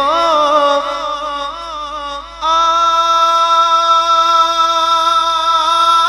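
A man singing an Urdu naat solo, with no instruments: wavering, ornamented phrases, then a long held note from about two and a half seconds in.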